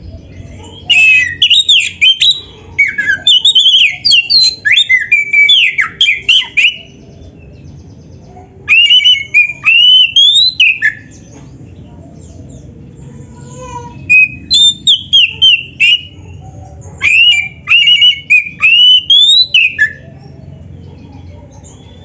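Oriental magpie-robin (kacer) singing loudly in four bouts of rapid, varied whistled notes that sweep up and down in pitch, with short pauses between them, over a faint low hum.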